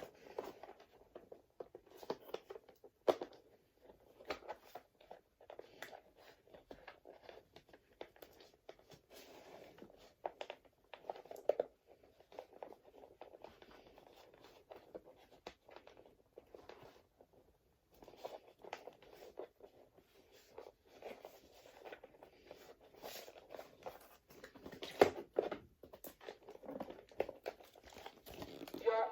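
Irregular crinkling, rustling and clicking of the animatronic toy's plastic and cardboard packaging being handled, with a sharper click about three seconds in and a few more near the end.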